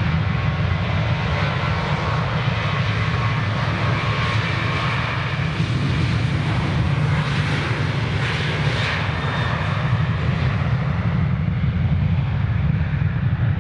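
Jet airliner engines at high takeoff thrust, a loud, steady sound with a deep low rumble and a hissing upper edge that swells in the middle and eases slightly near the end.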